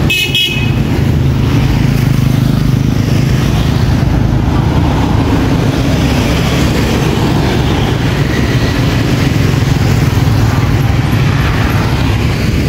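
Motorbike engines running with the general noise of street traffic: a steady low engine hum under a haze of road noise, with a brief break right at the start.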